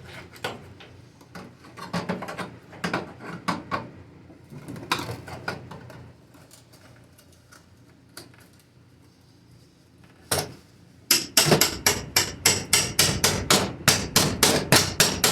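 Hammer blows on the sheet-steel body panel of a 1980 Jeep CJ7 being separated at its spot welds: scattered strikes over the first few seconds, a pause, then a fast run of about three blows a second near the end.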